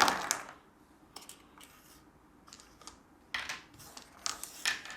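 Dice being handled after a roll: a rattle that dies away in the first half-second, then about half a dozen light, sharp clicks as the dice are picked up and sorted.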